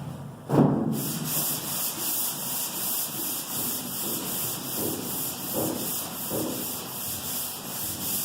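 Long board sander pushed by hand over the primed steel side of a pickup bed, the sandpaper rasping in even back-and-forth strokes about two to three a second. A knock about half a second in as the board goes down on the panel.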